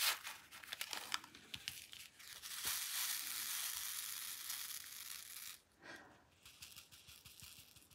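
Small diamond-painting drills poured from a plastic bag into a plastic sorting tray, clicking as they land, then the tray shaken so the drills rattle and slide across its grooves in a steady hiss for about three seconds, ending in a few scattered ticks.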